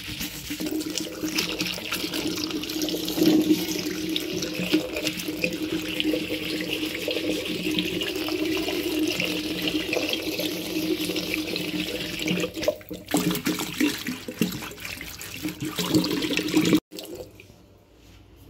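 Tap water running into a ceramic wash basin and splashing at the drain while a scrub pad rubs the bowl. The sound cuts off suddenly near the end, leaving only a faint trace.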